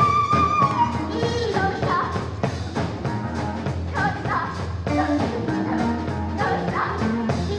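Live improvised rock band music: a steady drum beat and bass under a high held note that falls away about a second in, then high sliding melodic lines with some singing.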